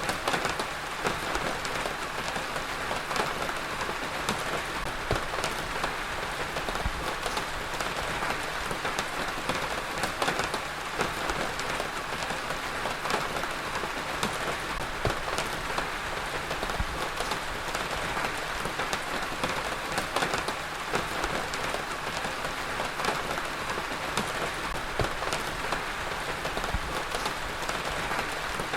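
Heavy rain falling steadily on a surface, a continuous hiss dotted with the sharp ticks of individual drops striking close by.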